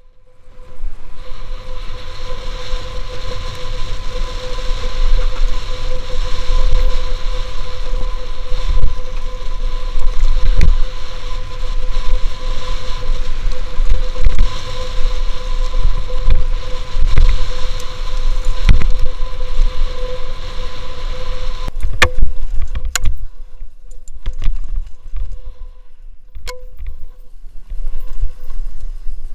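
Wind buffeting a helmet-mounted camera and the rattle of a bike on a rough dirt trail during a fast downhill, with occasional sharp knocks from bumps. A steady high tone runs under it and fades about two-thirds of the way through.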